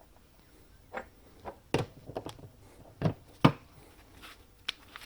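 Scattered sharp clicks and knocks of small metal parts being handled as the retaining nut is fetched and fitted onto a brushcutter's arbor, about seven in all, the loudest about three and a half seconds in.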